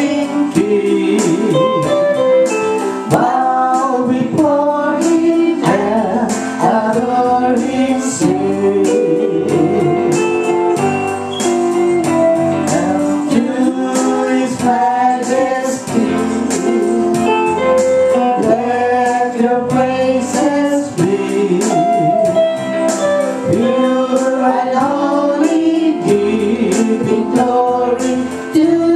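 Guitar strummed rhythmically under singing voices in a gospel worship song, playing without pause.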